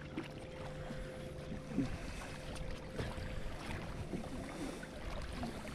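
Faint steady hum of a boat motor over an even haze of water noise; the hum dies away about halfway through.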